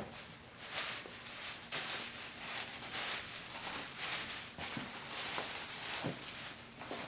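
Tissue paper rustling and crinkling as it is handled and pulled out of a gift box.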